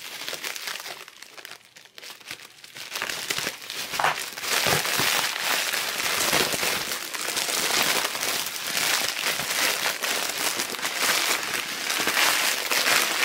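Bubble-wrap packaging crinkling as it is unwrapped by hand, sparse and quiet at first, then dense, steady crinkling from about three seconds in.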